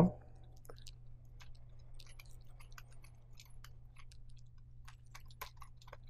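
Faint, irregular small clicks and scrapes of threaded round cable connectors being unscrewed and pulled off a safety light curtain's Intelligent Tap, over a steady low hum.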